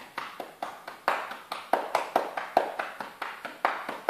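Cupped hands clapping rhythmically on a patient's chest wall, about five even pats a second: manual chest percussion, used to loosen lung secretions for airway clearance.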